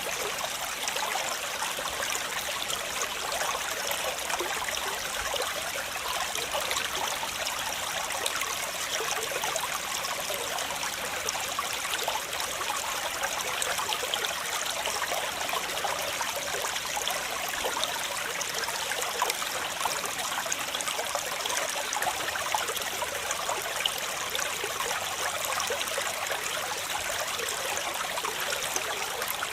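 Waterfall: falling water splashing with a steady, unbroken hiss that never changes in level.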